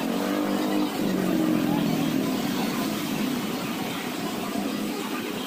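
A motor vehicle's engine running with a steady low hum, strongest in the first two or three seconds, then easing back into a haze of street noise.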